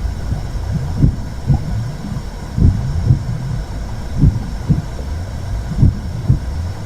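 Womb sound for soothing a baby: a muffled heartbeat, pairs of soft thumps about every second and a half, over a steady low whooshing rumble.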